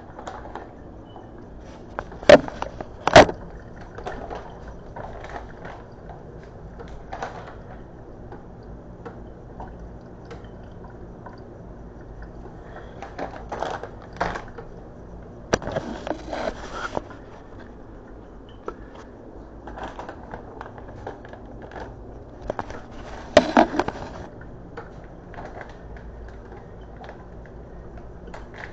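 Kitchen handling noises: scattered knocks, clatter and short rustles as food, utensils and packaging are handled on a counter. Two sharp knocks about a second apart near the start are the loudest.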